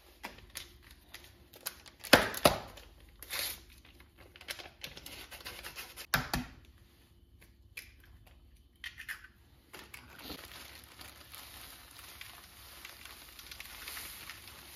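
Small paper packets of baking powder being torn open and crinkled, with two sharp knocks about two and six seconds in, and a soft steady hiss in the second half.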